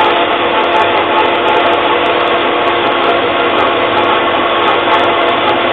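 Bandsaw with a coarse 3-teeth-per-inch, 15 mm blade resawing a thick block of sapele mahogany: a loud, steady running and cutting noise with a few steady tones through it, with the dust extractor running alongside. The blade rubs slightly, which the owner puts down to a small kink in it.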